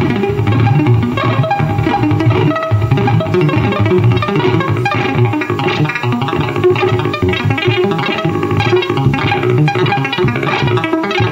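Live music played loud: a dense stream of plucked-sounding notes over a heavy low end, with no break.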